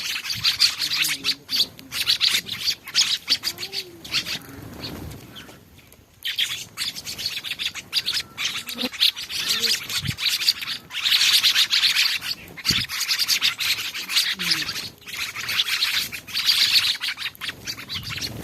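A flock of small birds chirping busily over one another at a feeding spot, dense and continuous, with a short lull about six seconds in.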